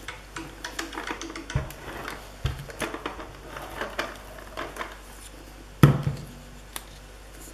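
Sheets of paper handled on a tabletop: rustling, sliding and small taps as one sheet is tucked under another and pressed flat, with two soft thumps and one sharper knock about six seconds in.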